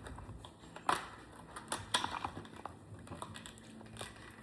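Scattered clicks and light knocks of a diecast model car and its plastic packaging being handled, sharpest about a second in and again about two seconds in.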